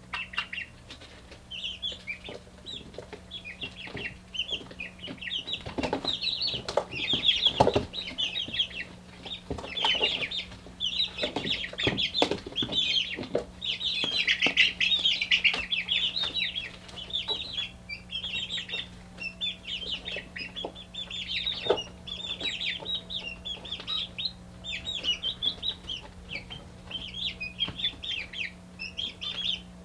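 A brood of young, half-feathered chicks peeping constantly in high, rapid chirps, busiest in the first half. Scattered sharp taps and knocks come through among the peeps, over a steady low hum.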